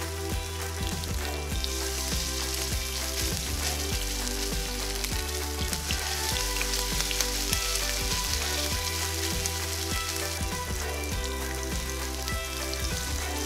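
Chicken-and-potato fritter batter sizzling and crackling in hot olive oil in a nonstick frying pan, as more spoonfuls of batter are added and spread. The sizzle grows louder a couple of seconds in.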